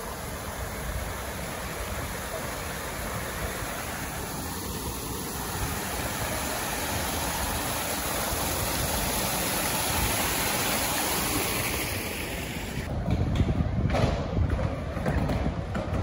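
Water from a stone cascade fountain pouring steadily over its ledges, growing a little louder toward the middle. About thirteen seconds in it gives way to gusts of wind rumbling on the microphone.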